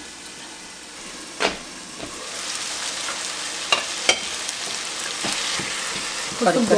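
Chopped rhubarb sizzling in oil in a frying pan, the hiss growing louder about two seconds in, with a few sharp knocks of the pan lid and a wooden spatula stirring against the pan.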